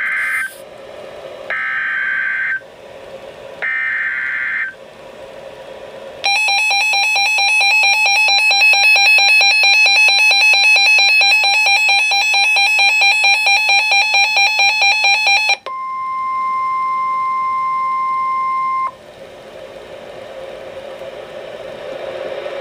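Emergency Alert System activation on NOAA Weather Radio. First comes the end of one SAME header data burst, then two more, each a short buzzy digital squeal about a second long. A rapidly pulsing electronic alert beep runs for about nine seconds, then the steady 1050 Hz warning alarm tone sounds for about three seconds, and radio hiss follows.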